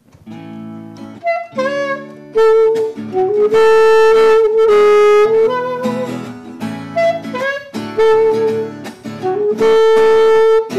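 Alto saxophone playing a slow melody with several long held notes over strummed acoustic guitar chords; the guitar starts alone and the saxophone comes in about a second later, as the instrumental opening of a song.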